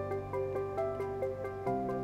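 Background music: a quick, even pattern of notes over held low notes, the low notes changing near the end.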